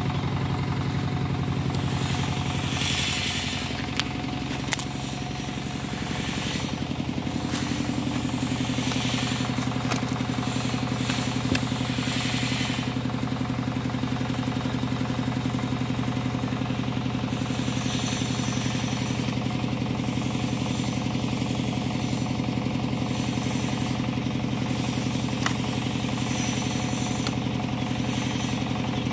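Stihl 070 two-stroke chainsaw idling steadily with its chain stopped, an even low engine note. A couple of light knocks about four seconds in.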